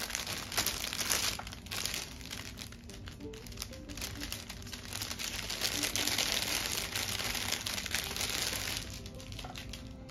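Clear plastic bag crinkling as it is handled and opened and baby clothes are pulled out of it, easing off near the end, with soft background music underneath.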